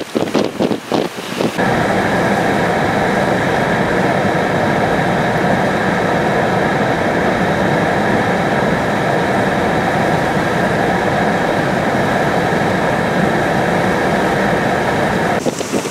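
Hurricane-force wind gusting hard against the microphone for the first second or so, then a steady, even roar of wind and rain with a faint hum running through it.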